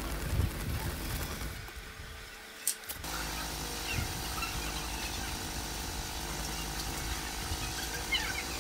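A Japanese yanagiba knife blade being stroked back and forth on wet fine whetstones, a steady scraping of steel on stone. About two and a half seconds in there is a short lull with two sharp clicks, then the scraping resumes.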